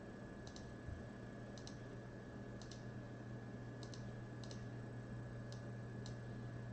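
Computer mouse clicking, each click a quick double tick of press and release, about once a second and seven or eight times in all, over a steady low electrical hum.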